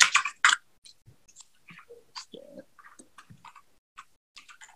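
Computer keyboard keys being pressed one at a time: light, irregular clicks, with two louder clacks near the start.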